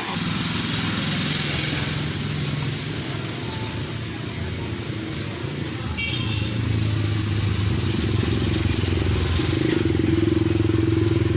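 Motor vehicle engine running, a steady low drone that grows louder in the second half, with a brief high chirp about six seconds in.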